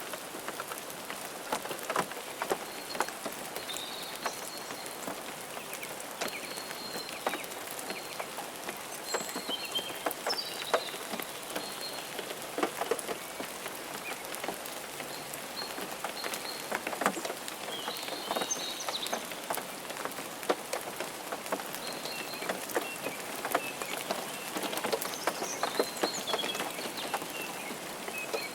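Steady rain falling, with many separate drops striking a nearby surface. Short high chirps come through now and then.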